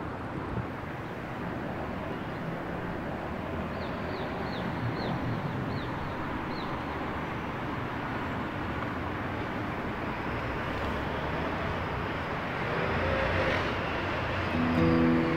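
Steady city street traffic ambience with a vehicle passing a little louder near the end. About four seconds in there is a run of half a dozen short, high, falling chirps, and music begins just before the end.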